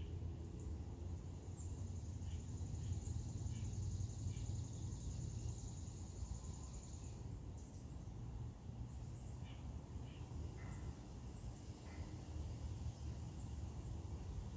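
Outdoor field ambience: a steady low rumble, scattered short bird chirps, and a high, even, pulsing trill that runs for about five seconds and stops about halfway through.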